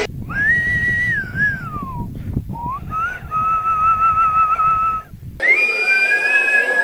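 Whistle-register singing: a very high sung note slides down, then after a short break a second high note is held steady, over a low rumble. About five seconds in it cuts to another recording of whistle-register notes.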